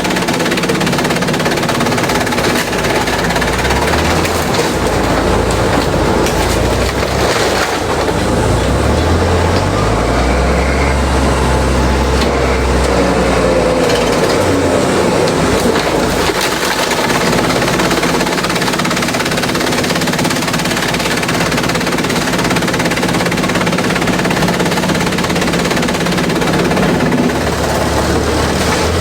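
Industrial bamboo shredder running under load: a loud, unbroken mechanical din of dense rattling and grinding over a low motor hum that shifts up and down in pitch.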